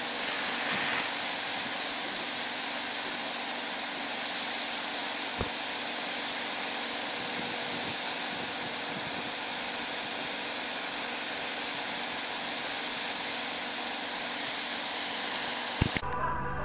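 A steady, even hiss of background noise, with a faint click about five seconds in and a couple of sharp knocks near the end.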